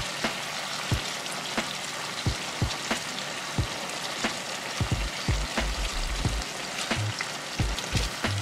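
Venison backstrap frying in butter in a cast-iron skillet: a steady sizzle with frequent sharp pops of spattering fat. A few low bumps come in the second half.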